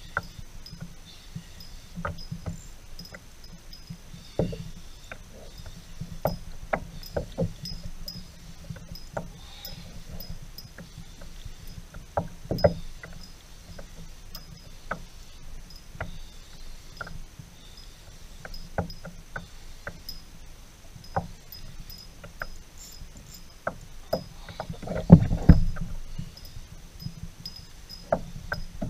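Water lapping against a fishing kayak's hull, with scattered knocks and clicks from the boat and gear over a low rumble of wind and water. A louder low thump comes near the end.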